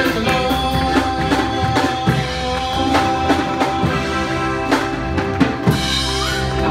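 Live gospel band playing, with drum hits and guitar. One long note is held for most of the passage.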